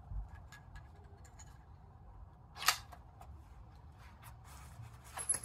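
Metal clicks of a homemade single-shot rifle's action being worked by hand while loading a round: a few light clicks, one sharp clack about halfway through, and a few more clicks near the end.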